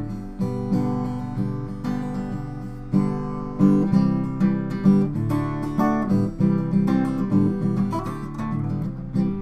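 Acoustic guitar strumming chords, with sharp strums every half second to second, as the song's instrumental outro after the last sung line.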